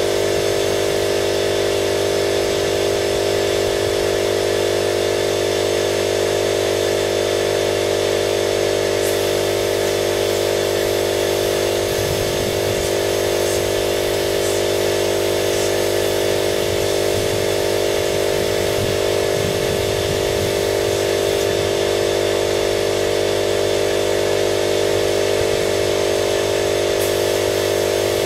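Spray-painting equipment running: a steady machine drone with a strong hum that holds unchanged in level throughout.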